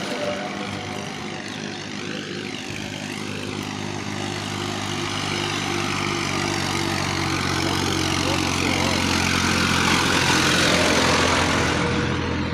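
A motor engine running with a steady pitch, growing gradually louder and then dropping away near the end.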